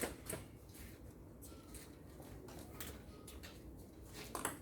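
Low, steady room noise of a hall, with a few faint sharp taps near the end, like a table tennis ball being bounced before a serve.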